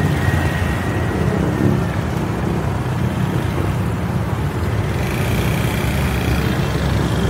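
Steady low rumble of a car driving through city traffic, engine and road noise with no sharp events.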